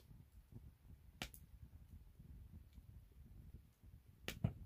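Firewood burning in a small metal fire pit, with a faint low rumble and sharp crackles and pops: two about a second in and a quick cluster near the end.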